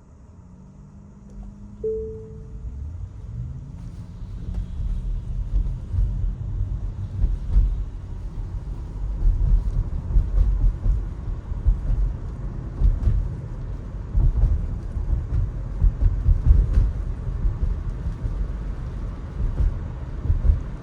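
Low, uneven road rumble of a Tesla on the move, building up and growing louder over the first several seconds as the car picks up speed. A brief tone sounds about two seconds in.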